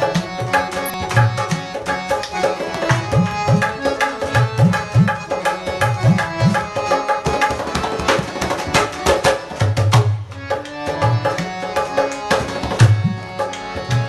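Instrumental Indian music with tabla playing a rhythm, its deep bass strokes bending in pitch, over sustained melody notes.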